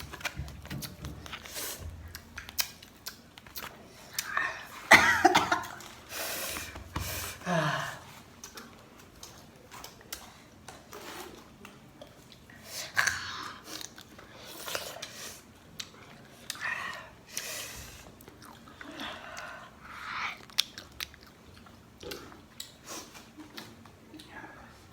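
A person chewing and biting into crisp Marian plum fruit in irregular crunchy mouthfuls, loudest about five seconds in.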